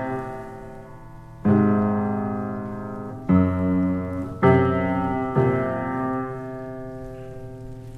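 Grand piano with many sticking keys played in slow chords: a chord struck just before rings on, then four more are struck one to two seconds apart, each left to ring and fade.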